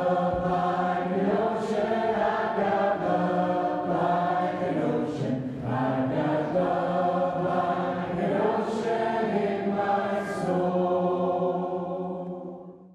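A choir singing slow, held chords that fade out near the end.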